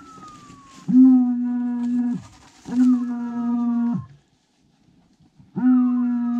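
A hunting dog's beeper collar sounding three identical long electronic tones, each about a second, with a falling whistle laid over each. The repeating signal is the kind a beeper gives when a setter stops on point.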